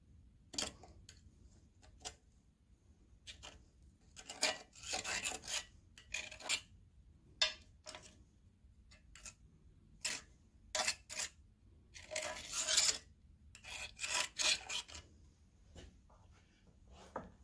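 Irregular scraping and rubbing inside the cast-iron engine block as the old rubber O-ring of the wet cylinder sleeve is picked and worked out of its seat, in short uneven strokes. The strokes are busiest about four to seven seconds in and again from about ten to fifteen seconds in.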